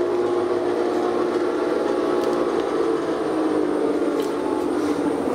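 Old lathe running, its three-phase motor and gear train giving a steady whine of several held tones over a low hum.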